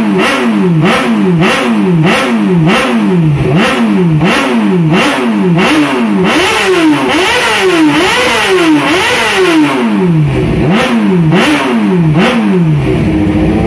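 Motorcycle engine revved over and over in quick throttle blips, about two a second, the pitch climbing and dropping each time. A few longer, higher revs come in the middle.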